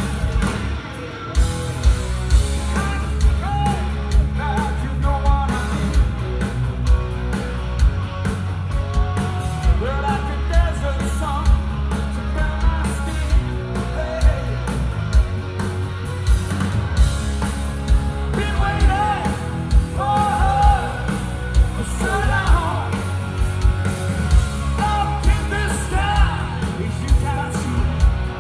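Live rock band playing electric guitars, bass and drums over a steady beat, with a male lead singer whose vocal line grows busier in the second half. Recorded from among the audience.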